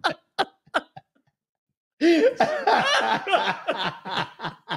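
A woman laughing in short bursts. The laughter breaks off for about a second of dead silence, then comes back louder and fuller.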